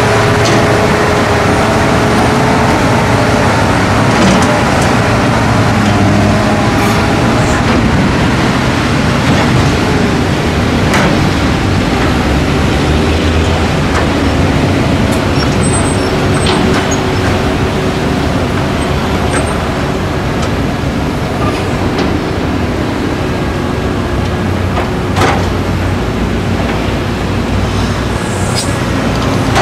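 Diesel engines of tracked hydraulic excavators running steadily under load as they dig soil and load a ten-wheel dump truck, with a few sharp knocks.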